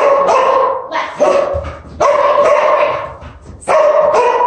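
Dog barking on cue in a series of long, drawn-out barks, each lasting most of a second with short gaps between them.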